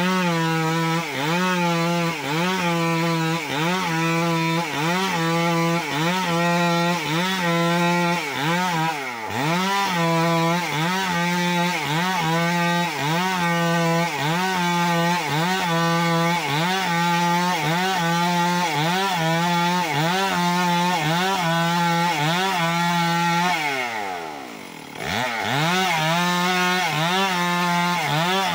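Two-stroke chainsaw ripping a suren log lengthwise into beams at full throttle. Its engine pitch sags and recovers about once a second as the chain bites into the cut. Near the end it briefly drops away toward idle, then revs back up.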